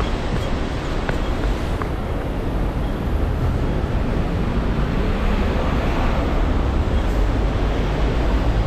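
City street traffic: a steady rumble of engines and tyres from passing vehicles, growing a little louder in the second half.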